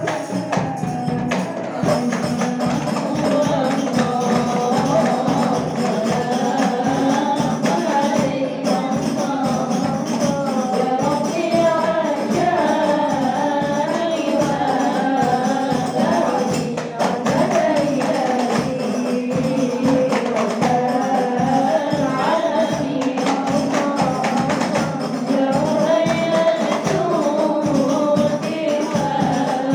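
Hadroh ensemble performing a sholawat: rebana frame drums beat a steady, even rhythm under a sung melody amplified through a microphone.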